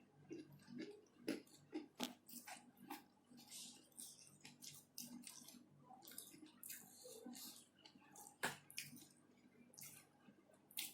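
Close-miked chewing of a mouthful of shrimp and petai (stink beans): quiet wet mouth smacks with small irregular crunchy clicks.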